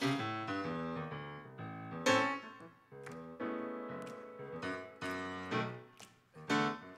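Solo grand piano playing a hymn: full chords struck one after another and left to ring, with a brighter, louder accent about two seconds in.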